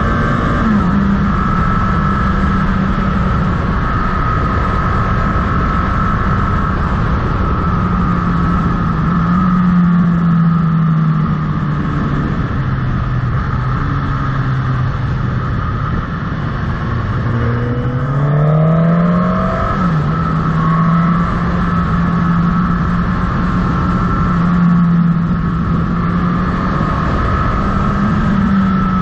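Motorcycle engine running under way, with steady wind and tyre noise. Its pitch falls and rises as the bike slows and accelerates through the bends. About two-thirds through it climbs in pitch, then drops sharply at a gear change.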